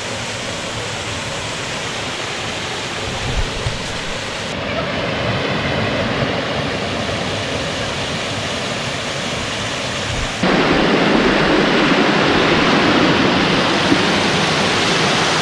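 Rushing water of a waterfall and stream, a steady rush. The sound changes abruptly about four and a half seconds in and again about ten seconds in, and is louder and fuller after the second change.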